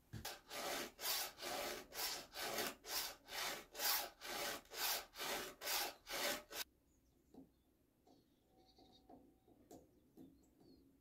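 Hand file rasping across the cutters of a chainsaw chain, with even sharpening strokes about two or three a second. The strokes stop a little past halfway through, leaving only a few faint ticks.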